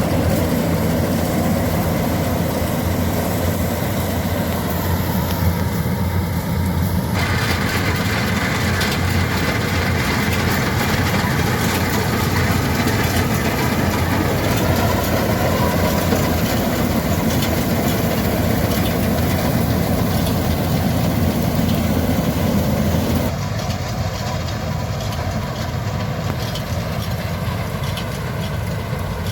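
Mini combine harvester's engine running steadily, with the machine's sound getting fuller and brighter abruptly about seven seconds in and turning somewhat quieter near the end.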